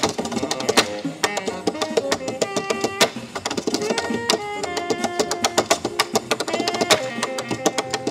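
Tap dancing: quick runs of sharp metal taps from tap shoes striking a wooden tap board, over music with a melody that steps between held notes.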